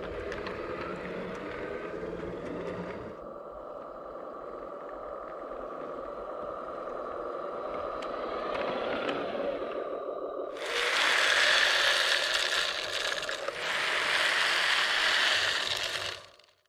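Garden-scale model diesel locomotive and hopper wagons running on the track: a steady motor and gear whine with wheels rolling and rattling over the rails. For the last few seconds it grows much louder and harsher as the wagons roll close by, then cuts off suddenly.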